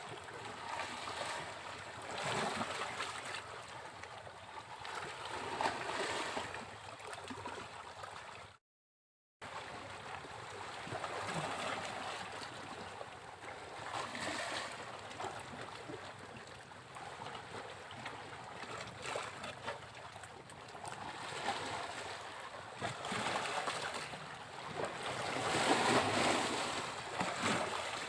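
Sea waves breaking on a beach, the wash swelling and falling back every few seconds, loudest near the end. The sound cuts out completely for under a second about a third of the way in.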